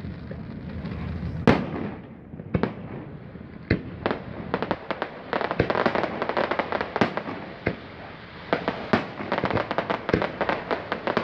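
Aerial fireworks: a few separate sharp bangs in the first four seconds, then a dense run of rapid crackling pops from about five seconds in as the shells burst into stars.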